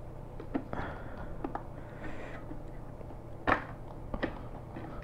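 Scattered small plastic clicks and taps from a helmet visor being pressed and worked onto the side pivot mechanism of an X-Lite X-803 helmet. The sharpest knock comes about three and a half seconds in.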